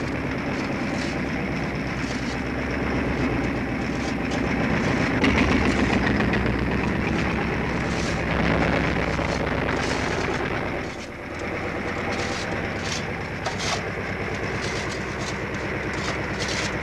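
Diesel engine of a crawler-mounted cable excavator running steadily while it digs, with light metallic clanks from the boom and bucket gear. The engine sound dips briefly about two-thirds of the way through.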